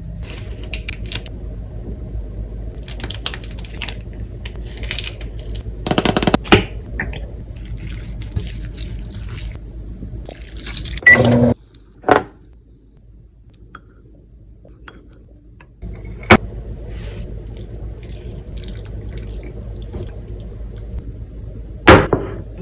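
Kitchen cooking sounds: a steady low hum with utensils and cookware clinking and clattering, and a few sharp knocks. The hum cuts out briefly midway and then returns.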